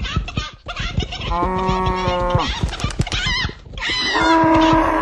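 Birds chattering and squawking rapidly, with two long, level-pitched calls about a second each, the second higher and louder.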